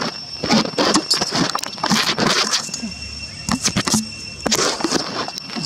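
Irregular rustling and crackling as macaques shift and move about in dry grass and fallen leaves, with a faint steady high-pitched tone in the background.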